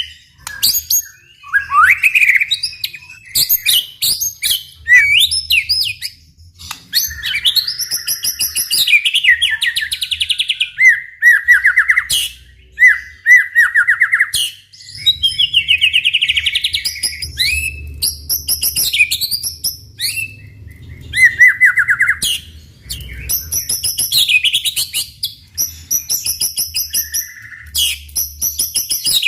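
White-rumped shama singing energetically in a continuous run of varied phrases: loud whistles, fast trills, buzzy notes and sharp clicks, with short pauses between phrases.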